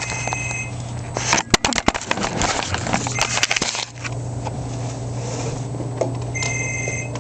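Clicking, knocking and rustling as power cords and a plug are handled at a plastic power strip, mixed with camera handling noise, for about the first four seconds; then a steady low hum. A short high tone sounds at the very start and again near the end.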